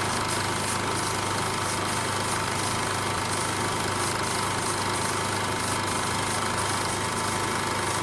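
An engine running steadily at idle, with a steady high-pitched tone over an even mechanical noise.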